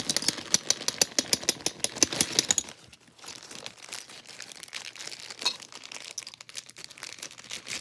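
Thin clear plastic bag crinkling and crackling as spare keyboard keycaps are worked out of it, a dense rapid crackle for the first three seconds, then quieter, scattered crinkles.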